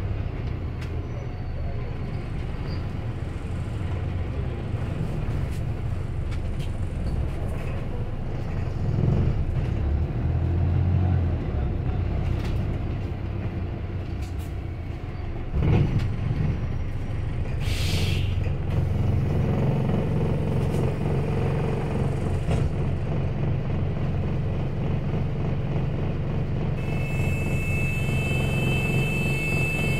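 Cabin sound of Arriva London bus SLS24 on the move: the engine drones low and steady, with a knock about halfway through and a short hiss of compressed air a couple of seconds later, typical of the air brakes. The engine note grows fuller in the last third.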